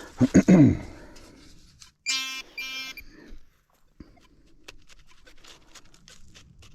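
Metal detector sounding two short, high target beeps about two seconds in, signalling a metal target in the dig. Low falling sounds come before the beeps, and faint scraping and ticking of digging in rocky soil follow them.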